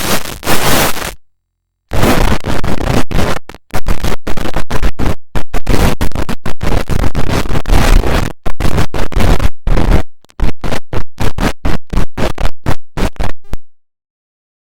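Harsh digital static, the noise effect of a fan-made emergency alert render, chopped on and off in rapid, uneven stutters. It drops out briefly about a second in and stops near the end.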